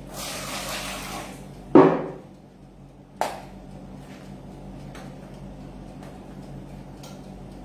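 Kitchen handling sounds: a short hiss, then a loud knock about two seconds in and a sharper click a second later, over a low steady hum.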